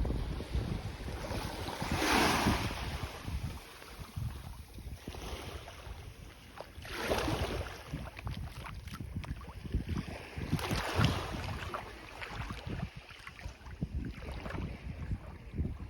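Small sea waves washing in on a beach, a hissing swell about every four to five seconds (three in all), with wind buffeting the microphone underneath.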